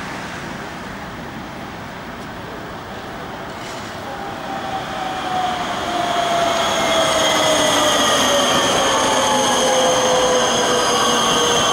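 Low-floor electric tram approaching and passing close on street track, wheels rumbling on the rails. From about four seconds in it grows louder, with a whine of several tones falling slowly in pitch and a high steady squeal.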